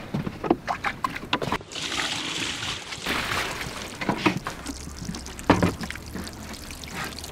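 Knocks and clatter on a fishing boat's deck as a fabric unhooking mat is handled, with a burst of rustling about two seconds in. A low steady hum sets in about halfway through.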